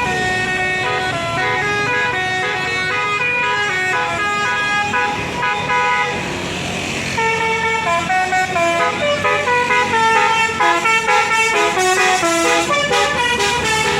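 Telolet basuri multi-tone bus horn playing a melody as a quick run of stepped notes. About seven seconds in a new tune starts, louder and with shorter, clipped notes.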